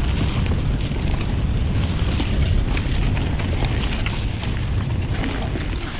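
Wind buffeting an action-camera microphone while riding a mountain bike, a steady low rumble mixed with tyre noise on dirt and small rattles and clicks from the bike.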